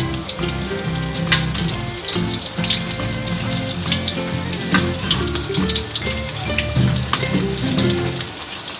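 Martabak telur (egg-and-scallion filling in spring-roll wrappers) frying in hot oil: a steady sizzle with many scattered crackles and pops. Background music plays under it.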